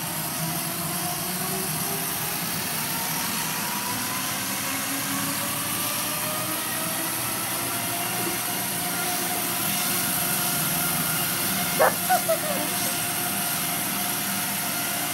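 Home treadmill running, its belt hissing steadily under a motor whine that rises slowly in pitch; a few short sharp sounds about twelve seconds in.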